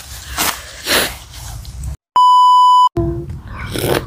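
A nose being blown into a tissue in short noisy puffs, broken by a loud steady electronic beep lasting under a second about two seconds in, with dead silence just before and after it.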